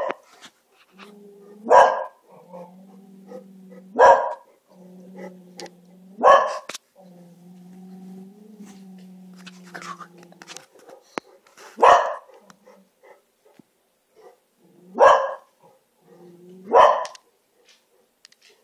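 Dogs barking and growling: about six sharp barks a couple of seconds apart, with a low, steady growl held between them. This is alarm barking at something the dogs sense outside.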